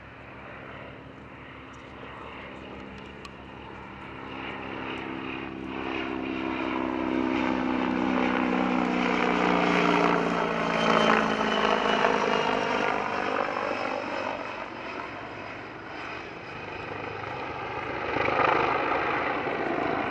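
T129 ATAK attack helicopter flying past low and close, its rotor beating steadily under the whine of its twin turboshaft engines. The engine tone falls in pitch as the helicopter comes by about ten seconds in, loudest then, fading and swelling again near the end.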